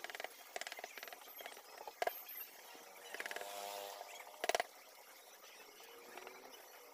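Hand chisel cutting and scraping into a carved wood panel, with a few sharp clicks and knocks as the blade bites. The loudest click comes about four and a half seconds in.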